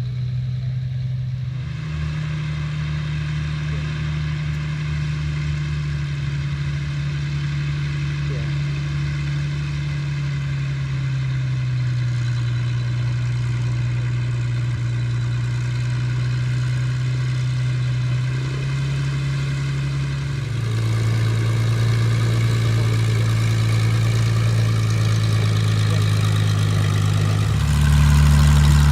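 Hawker Sea Hurricane's Rolls-Royce Merlin V12 engine running steadily, its pitch shifting in steps up and down as the throttle is moved, and growing louder near the end.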